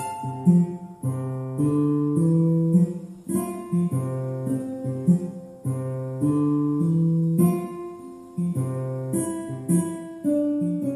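Background music: a plucked acoustic guitar tune played as a run of separate notes.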